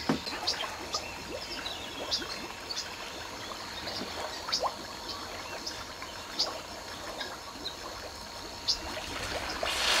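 River water trickling and lapping, with scattered short chirps and ticks over it, and a louder rushing swell of noise near the end.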